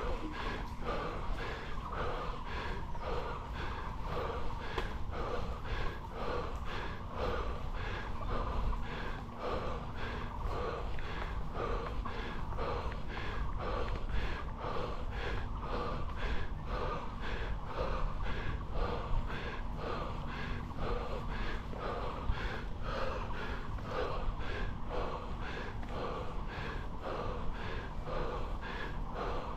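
A road cyclist panting hard and fast under heavy exertion on a steep climb, about two breaths a second and very even, over a steady low rumble.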